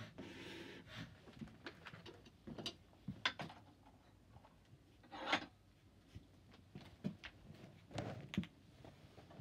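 Hand-cranked forge blower whirring for about the first second, then scattered knocks and clinks of metal tools being handled at a bench vise, with a few louder knocks about three, five and eight seconds in.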